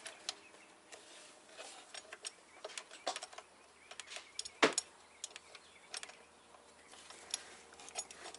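Scattered light metallic clicks and taps as the belt tensioner's mounting bolts are threaded in by hand, with one sharper knock about halfway through.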